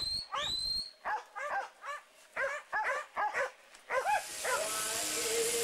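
Sheepdog barking in quick, repeated short barks while working a flock of sheep, with a couple of higher rising calls near the start. About four seconds in the barking stops and background music with a hiss takes over.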